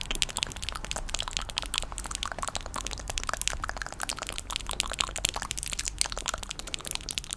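ASMR tapping and scratching: a dense, steady run of crisp crackling clicks, many a second, without pauses.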